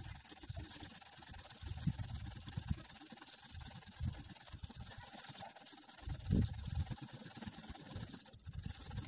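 Hand-worked pole saw on a telescopic pole slowly sawing through a thick oak branch overhead: a faint, steady rasping with a dull low thud about every two seconds.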